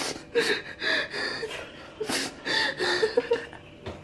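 A person gasping and blowing out sharp, hissing breaths, about six in four seconds, mixed with snorts and short chuckles: the breathing of a mouth burning from hot chili.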